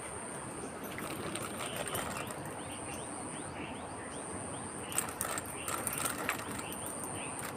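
A freshly caught paral (small barb) fish flopping on dry leaves and earth, with scattered rustling slaps and a cluster of sharper ones about five to six and a half seconds in. A steady high-pitched whine and many short rising chirps run underneath.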